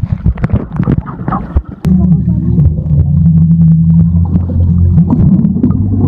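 Muffled underwater sound picked up by a phone in a waterproof pouch while swimming in a pool. For about two seconds there is a crackle of bubbles and splashing; after that a loud, steady low drone takes over.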